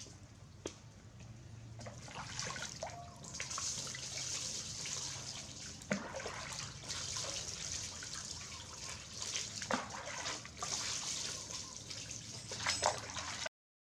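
Bath water trickling and splashing steadily, with a few sharp knocks along the way; it stops abruptly just before the end.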